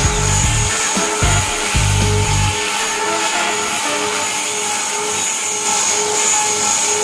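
Small electric radio-controlled helicopter hovering low, its motor and rotor blades giving a steady high whine over rotor hiss. Low buffeting rumbles hit the microphone for the first two or so seconds.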